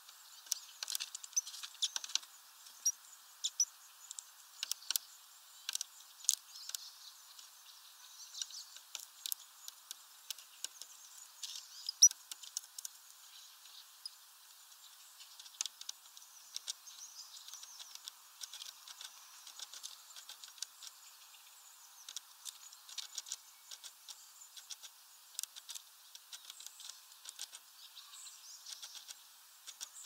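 Irregular sharp clicks and taps of small birds pecking at sunflower seeds on a feeder tray, at times several a second, the loudest about twelve seconds in, with faint high chirps from the birds.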